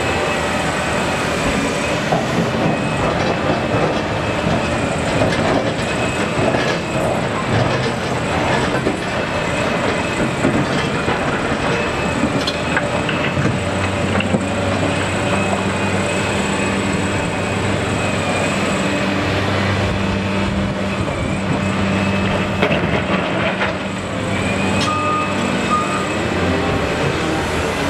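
Liebherr R976 crawler excavator working: its diesel engine runs under load and its hydraulics whine as the bucket digs into rock and soil, with stones scraping and clattering against the steel bucket. The engine note steadies and grows stronger from about halfway through, while the bucket is digging.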